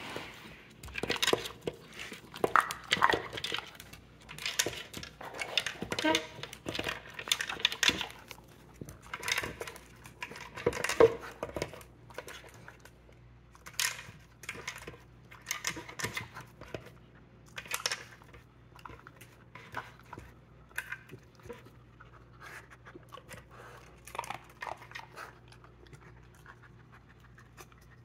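Beagle eating dry kibble from a plastic slow-feeder bowl: irregular crunching and kibble clicking against the plastic as it noses the pieces out of the maze, busiest in the first dozen seconds and sparser after.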